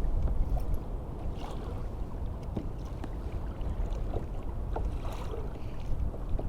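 Steady wind rumble and water noise around a fishing kayak, with a few small clicks and taps scattered through it.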